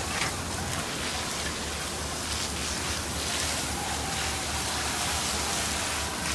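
Fire hose spraying water, a continuous rain-like hiss, with a low steady hum underneath.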